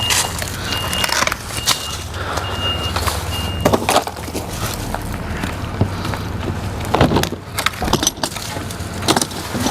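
A vehicle's engine running with its reversing alarm beeping steadily, about one beep a second, until the beeping stops about four seconds in; a few sharp knocks follow while the engine keeps running.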